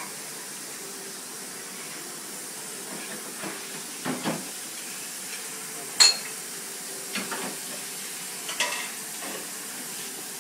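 Dishes and utensils clinking now and then over a steady hiss, with one sharp clink about six seconds in.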